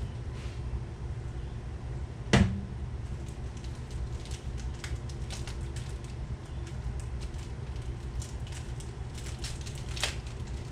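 Clicks and light taps of small engine parts being handled, with one sharp knock about two seconds in, over a steady low hum.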